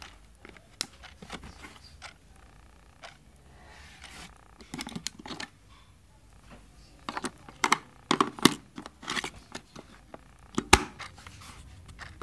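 An AA battery being worked out of and pressed into the plastic battery holder of a quartz wall-clock movement: scattered clicks, knocks and scraping, with the sharpest click a little before the end.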